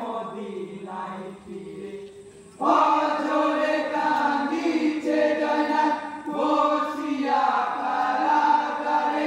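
A group of men singing a marsiya, a mourning lament, in chorus. The singing is quieter at first, then about two and a half seconds in the full group comes in much louder.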